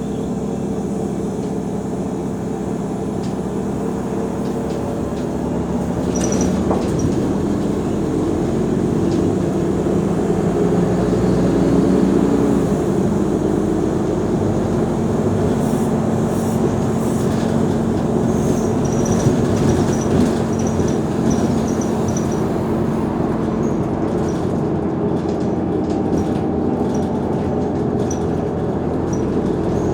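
Mercedes-Benz O345 Conecto G articulated bus running under way, its engine note steady, then rising and louder about six seconds in. A faint regular ticking is heard through the second half.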